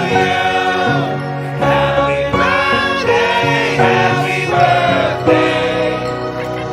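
Background music with choir-like singing voices.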